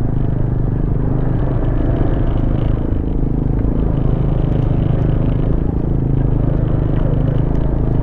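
Honda ADV scooter's engine running steadily while riding over a rough dirt road.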